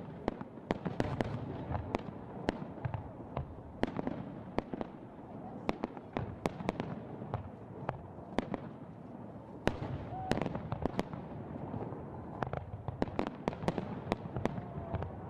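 Fireworks going off in a fireworks display: many sharp bangs and crackles in quick, irregular succession over a steady background rumble.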